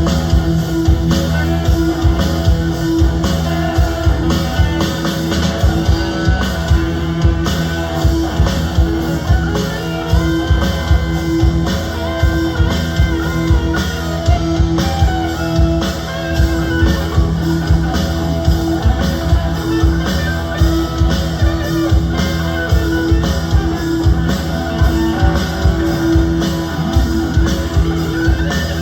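A band playing a rock song with guitars and a drum kit, with a steady beat.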